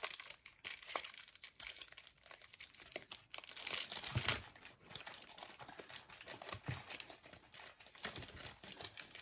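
Plastic trading-card pack wrappers crinkling and rustling as they are handled, with a louder stretch of crackling about four to five seconds in.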